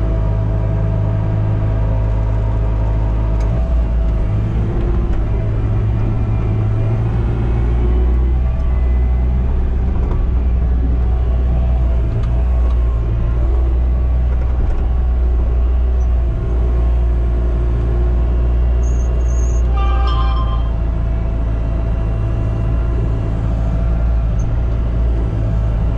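Skid-steer loader's diesel engine running steadily, a loud low rumble heard from inside the cab.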